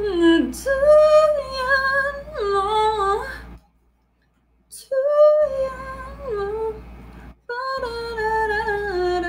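A woman humming a tune unaccompanied, in three phrases of held notes that slide up and down, with short breaks between them.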